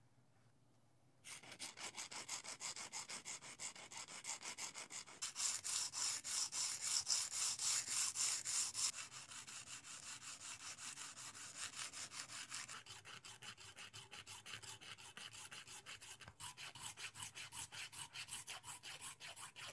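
Rapid back-and-forth rubbing of a miniature pearl-oyster-shell knife blade across an abrasive block, several strokes a second, as the shell is ground and polished. It starts about a second in and is loudest for a few seconds in the middle.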